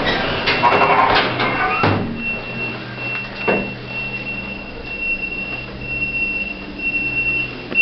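Shopping-centre passenger lift: the sliding doors clatter shut over the first two seconds, then the car travels with a steady low hum and a thin high whine.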